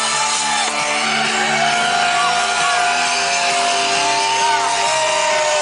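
Loud electronic trance music played over a festival sound system, with sustained synth lines and some sliding pitches.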